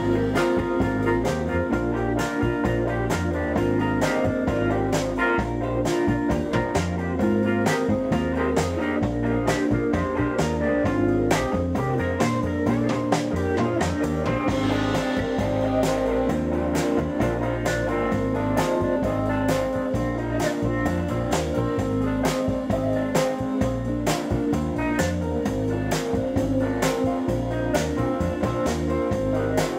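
Indie rock band playing live in an instrumental stretch: semi-hollow electric guitar over a steady drum kit beat.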